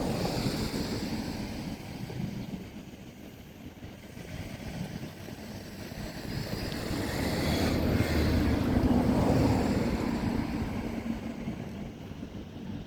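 Wind rumbling on the microphone, swelling and easing, loudest about eight to ten seconds in.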